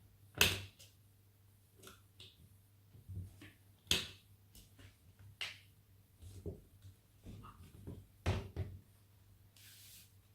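Irregular clicks and taps of a small Phillips screwdriver and screw against a laptop's plastic case as a screw is driven in, about half a dozen sharper knocks among fainter ones. A steady low hum runs underneath, with a short hiss near the end.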